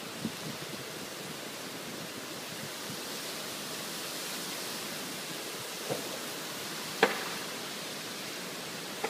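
Heavy rain pouring down in a steady hiss, with a few sharp taps, the loudest about seven seconds in.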